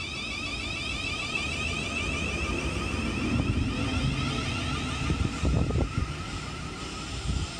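Class 707 electric multiple unit pulling out and moving away: a whine of several high tones from its traction equipment over a low rumble of wheels on rail, with wind buffeting the microphone at times.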